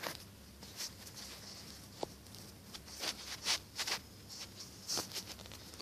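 Quiet scattered clicks and rustles, about a dozen, with a cluster in the middle, over a faint steady low hum.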